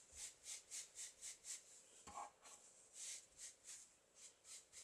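Faint, quick brush strokes on canvas drop cloth, about three to four a second with a short pause midway, as a brush dabs and rubs thinned brown craft paint onto the fabric's fringed edge.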